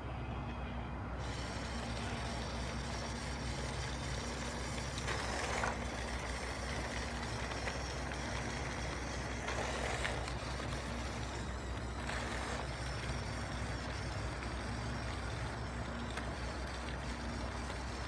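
1/16 scale radio-controlled M113A2 model running, a steady low engine-like drone with a constant hum. Three short, hissier surges come about five, ten and twelve seconds in.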